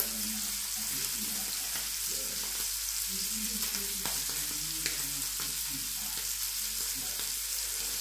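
A cutlet frying in butter in a stainless steel frying pan: a steady sizzle with a few small pops.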